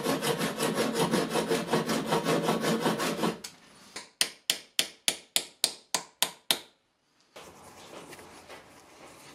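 A fine saw cutting a metal cross pin flush on a hammer head held in a vise, at about four strokes a second for some three seconds. Then about nine sharp taps of a hammer on a punch, peening the pin's end over. After a brief silence, faint hand rubbing.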